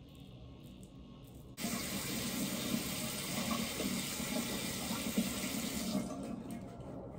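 Sink tap turned on about a second and a half in, water running steadily into the basin, then easing off near the end.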